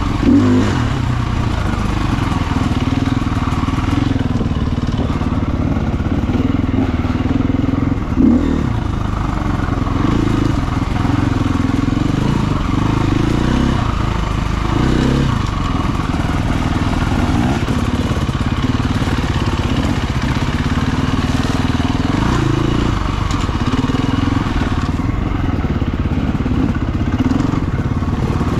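Husqvarna FE350 four-stroke single-cylinder dirt bike engine running under changing throttle, its note rising and falling every couple of seconds. Two sharp knocks stand out, one just after the start and one about eight seconds in.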